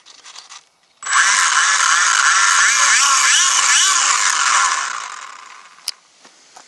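Small electric RC plane's motor and propeller running up hard, a high-pitched whine that starts suddenly about a second in, wavers up and down in pitch for about four seconds, then winds down.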